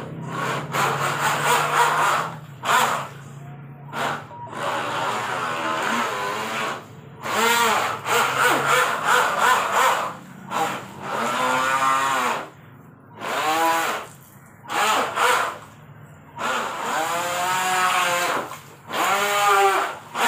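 Feilun FT009 RC racing boat's electric motor whining in repeated bursts of throttle, its pitch rising and falling with each burst as the propeller churns the water.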